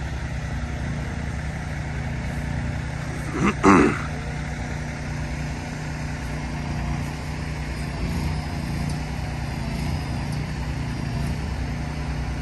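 Heavy trucks hauling steel bridge beams, their engines running low and steady as they manoeuvre. A short, loud burst of noise comes about three and a half seconds in.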